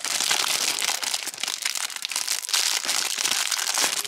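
Packaging of a pack of nail stickers crinkling and rustling continuously as it is handled and opened.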